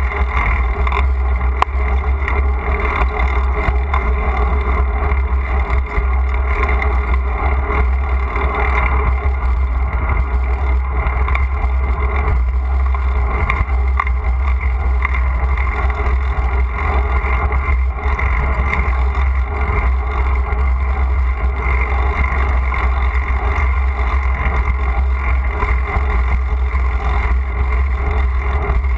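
Steady ride noise picked up by a bike-mounted GoPro while the bicycle rolls along a paved street: wind and road vibration through the camera mount, loud and heaviest in the low end.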